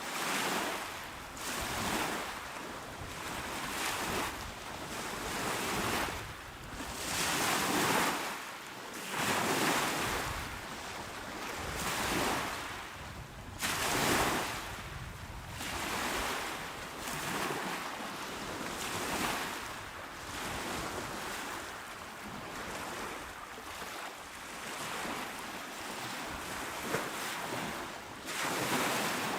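Small, calm sea waves breaking and washing onto a shore: a continuous hiss of surf that swells and falls back every couple of seconds.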